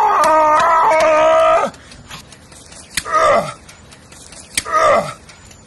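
A man's voice: a long, loud held yell that steps up and down in pitch for the first second and a half or so. Then come two short groans falling in pitch, about three and five seconds in, as he strains through sit-ups.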